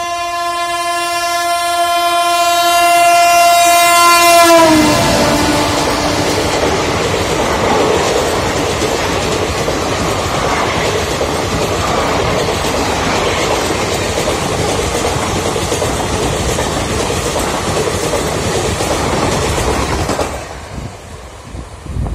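An express train's locomotive horn sounds in one long, steady blast as the train approaches at full speed, and drops in pitch as the locomotive passes about four and a half seconds in. The coaches then rush past with loud wheel and rail noise for about fifteen seconds, which falls away near the end as the train clears the station.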